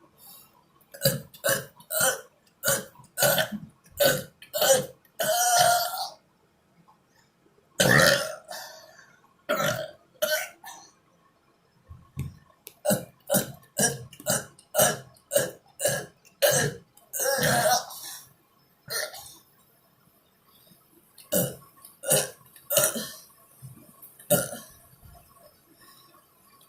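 A man burping over and over, a long run of short burps about two a second, with a few longer drawn-out ones and brief pauses between runs.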